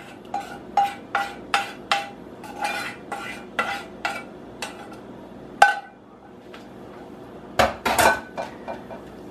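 A plastic spoon scraping and tapping the inside of a stainless steel saucepan, the pan ringing with each stroke, about twice a second, as melted fat and peanut butter is scraped out. It stops about five and a half seconds in, and a few louder metallic clanks follow near the end.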